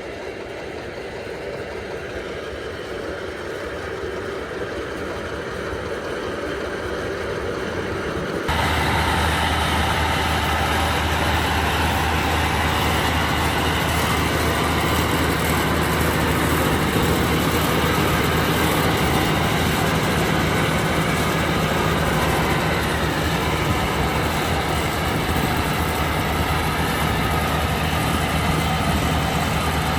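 30 hp Dong Feng diesel engine running a corn sheller, slowly getting louder, then abruptly louder about eight seconds in, when a deep steady hum comes in and holds.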